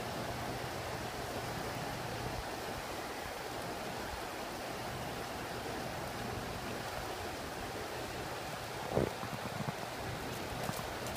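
Steady rushing of water, with a low hum strongest in the first few seconds and a brief sharp sound about nine seconds in.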